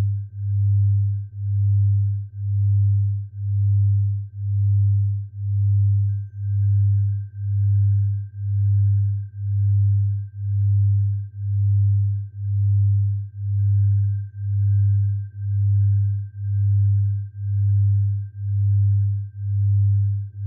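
Synthesized sound-therapy tone for tinnitus relief: a deep, pure hum that swells and fades about once a second, with a faint steady high whistle-like tone beneath it.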